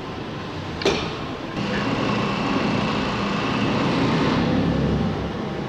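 Steady factory-floor machinery noise, a mechanical hum that gets a little louder after about a second and a half, with one sharp knock about a second in.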